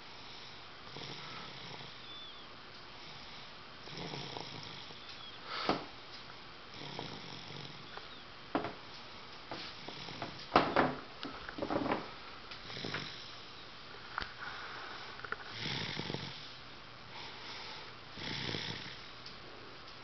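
Sleeping toddler snoring, one slow breath every one to three seconds, with a few short sharp clicks in between.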